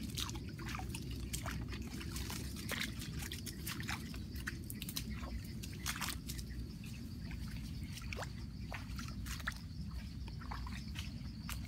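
Water dripping and trickling in irregular drops and small splashes over a steady low rumble, with a faint steady high insect-like tone coming up in the second half.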